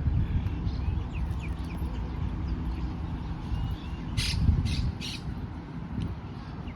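Outdoor bird calls: three short, harsh squawks about four seconds in, with faint chirping around them and a low rumble underneath.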